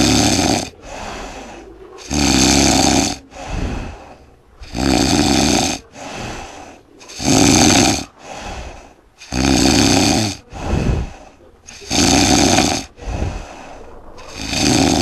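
A man snoring loudly, a loud snore on each breath in about every two and a half seconds, with a quieter breath out between them.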